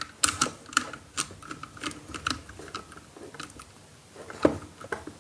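Small screwdriver working the terminal screw of a modular DIN-rail isolator as a wire is fitted. It makes a run of irregular small clicks and ticks from the tool, the screw and the plastic housing, with a slightly louder click about four and a half seconds in.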